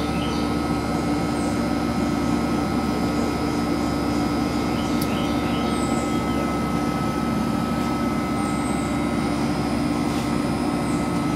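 Military helicopter overhead, a steady engine and rotor drone that does not rise or fall, with a few faint bird chirps.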